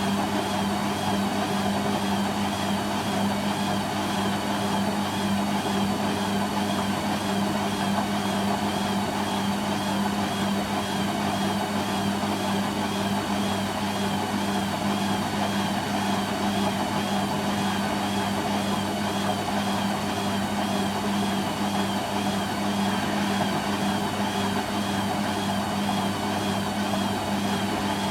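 Hoover Quattro Easylogic AE130 front-loading washing machine running a spin at a constant speed: a steady hum with a faint wavering whine above it.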